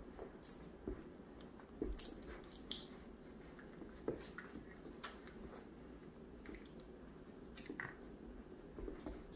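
A schnoodle puppy and a schnauzer puppy play-wrestling on a rug: faint scuffling and soft clicks now and then, with short jingles of metal collar tags.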